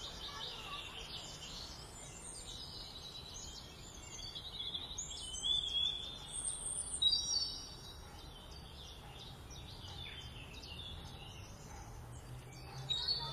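Small birds chirping and trilling in quick, scattered calls over a steady outdoor background hiss, busiest about six to seven seconds in.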